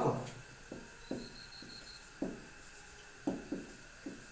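Felt-tip marker writing on a whiteboard: a handful of soft, short taps and strokes of the tip against the board, with a faint high squeak for about a second near the start.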